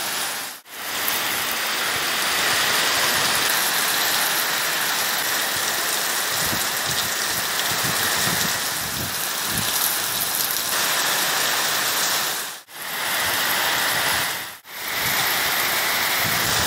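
Heavy rain pouring down steadily, with water streaming off a roof edge. The sound drops out briefly three times.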